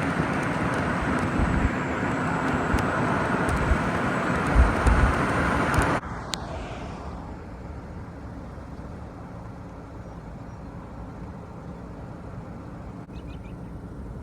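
Loud road and wind noise of a moving vehicle heard from inside, with occasional low thumps. About six seconds in it drops abruptly to a much quieter, steady low hum.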